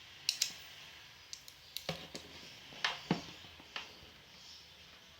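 Irregular sharp clicks and snips from working the end of a UTP network cable with a crimping tool, about ten spread over the first four seconds.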